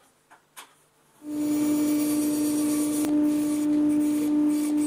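Bandsaw running steadily while flush-trimming plywood cam levers to a template: a steady hum over a hiss that starts abruptly about a second in.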